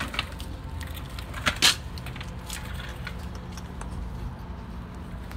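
Two sharp metallic clicks close together about a second and a half in, from hand tools and truck parts being handled, over a steady low hum.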